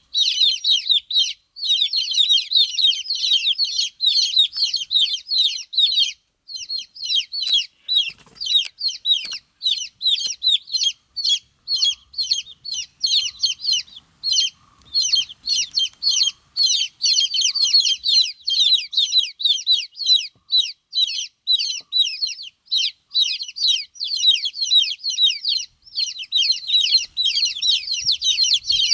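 Domestic chicks peeping nonstop: many short, high, down-sweeping peeps overlapping from several birds, with a brief lull about six seconds in.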